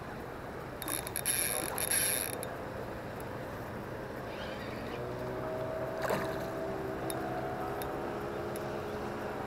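Spinning reel being cranked to retrieve line, its gears whirring, loudest from about one to two and a half seconds in.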